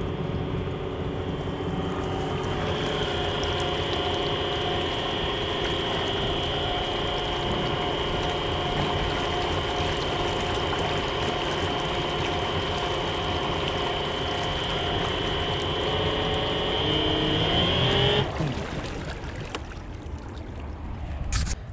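Homemade brushless electric outboard motor running under load through a worn Carver lower-unit gearbox, a steady multi-tone whine with a high note on top. Near the end the pitch rises briefly and the motor cuts off suddenly about eighteen seconds in, leaving only quieter background noise and one click.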